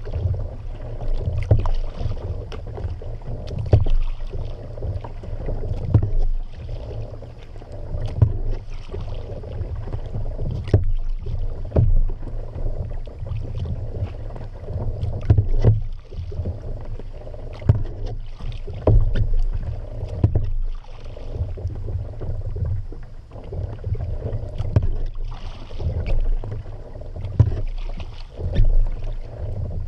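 Kayak being paddled on open water: steady paddle strokes splashing, with sharp knocks every second or two over a low, uneven rumble.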